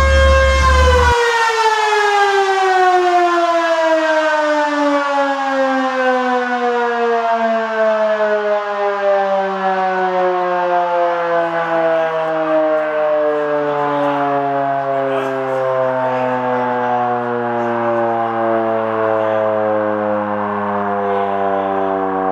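Electric motor-driven mechanical siren winding down after being switched off: one long wail that falls slowly and smoothly in pitch from high to low. A low hum cuts off about a second in.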